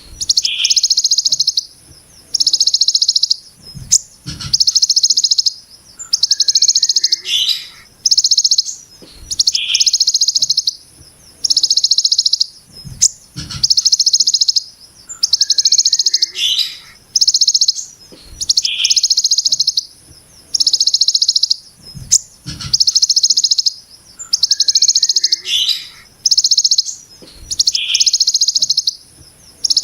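Kolibri Ninja sunbird singing rapid, harsh, buzzy trills in the 'brem ciblek gunung' style. Each trill lasts about a second and is repeated every couple of seconds, with a few dull low thumps between some of them.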